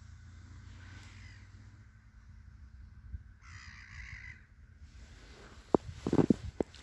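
A crow caws once, harsh and about a second long, about halfway through, over a low steady rumble. Near the end come a few sharp knocks, the loudest sounds here.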